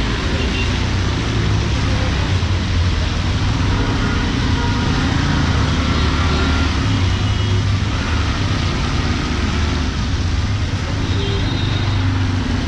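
Street traffic on a wet road: vehicle engines running close by with a steady low drone, over a continuous hiss of tyres on wet pavement.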